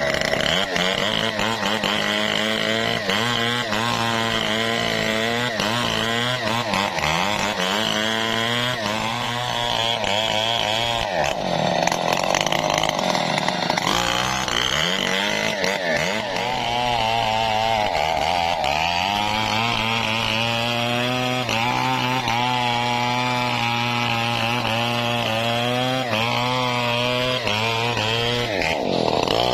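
Stihl 070 two-stroke chainsaw running at high revs and cutting wood. Its engine pitch sags and recovers several times as the bar works into the timber.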